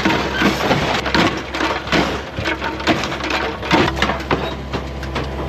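Excavator bucket wrenching at a car's engine to tear it out: irregular metal crunching, scraping and banging over the excavator's steady engine. The engine does not come free on this first try.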